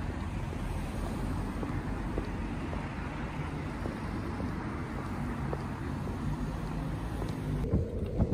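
Street traffic: cars and other vehicles running and passing in a steady low rumble. The sound changes abruptly near the end.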